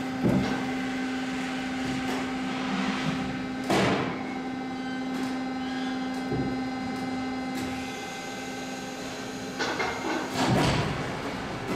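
Press brake running with a steady hum while a thick steel plate is set on its die, with metal knocks and clanks as the plate is placed. The loudest knock comes about four seconds in, and the hum gives way to a noisier stretch near the end.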